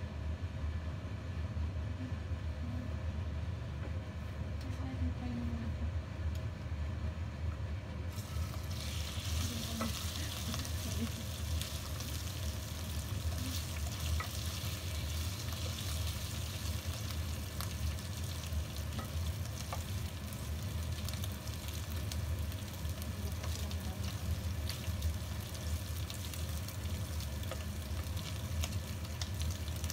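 Raw shell-on prawns start sizzling in hot oil in a wok about eight seconds in, then fry steadily while a slotted spatula stirs them, with small scraping clicks. A steady low hum runs underneath.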